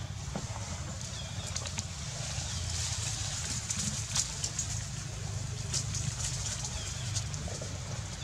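Outdoor ambience: a steady low rumble under faint high hiss, with a few faint short chirps every second or two and scattered light rustles and clicks.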